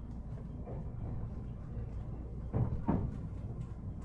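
Steady low hum of a JR 223 series 5000 electric train standing at a station, heard on board, with two dull knocks close together about two and a half seconds in.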